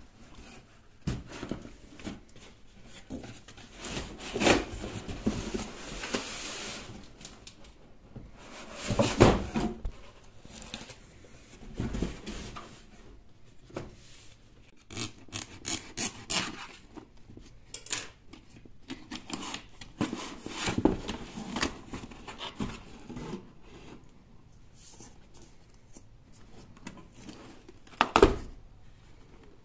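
Cardboard boxes handled by hand while unpacking a laptop: irregular scraping, rustling and knocks of cardboard against cardboard. There is a sharp knock about 28 seconds in as the inner box is opened.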